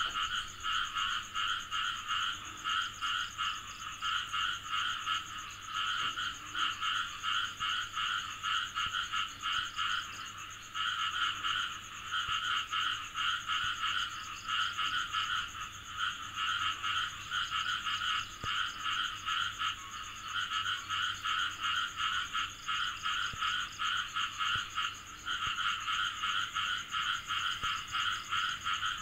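Frogs croaking in a pond: rapid trains of pulsed croaks that come in bouts several seconds long, with brief pauses between bouts.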